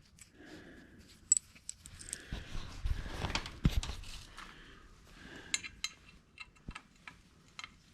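Small metal parts and hand tools clinking and rattling as they are handled, with scattered sharp clicks and a busier clatter about two to four seconds in.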